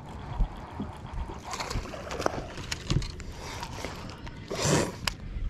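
Baitcasting reel being cranked and the rod handled while a hooked bass is reeled in: scattered light clicks and knocks, with a short rushing noise about four and a half seconds in.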